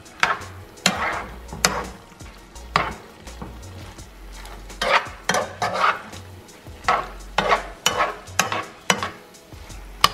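Metal spoon scraping and clacking against a nonstick skillet in irregular strokes, stirring a sauté of shrimp and crab meat, with a light sizzle from the pan underneath.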